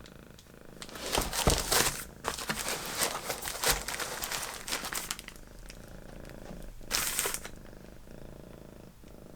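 Packaging crinkling and rustling in bursts, from about a second in to about five seconds and again briefly near seven seconds, as a keyboard is unwrapped, over a cat's steady purring.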